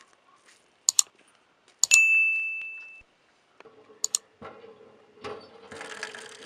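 Sound effects for an on-screen subscribe and like animation: a mouse double-click, then a click with a bell-like ding that rings and dies away over about a second, and another double-click. In the last second or so, water starts pouring onto vegetables in a stainless steel tray.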